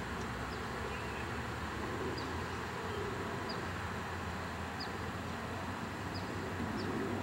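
Steady outdoor background noise with a low hum, and a faint, short, high chirp that repeats every second or so.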